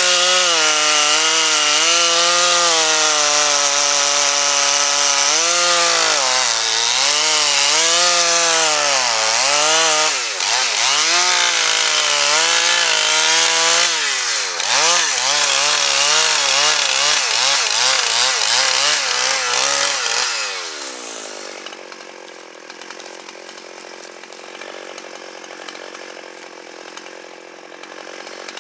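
Two-stroke chainsaw running at high revs while cutting pine, its pitch repeatedly dipping and recovering. About twenty seconds in, the engine winds down and drops out, leaving a fainter, steady noise.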